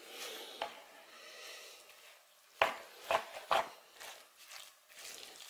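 A spoon stirring and scraping crumbly yeast dough with grated cheese in a plastic bowl, with a few sharp knocks of the spoon against the bowl about two and a half to three and a half seconds in.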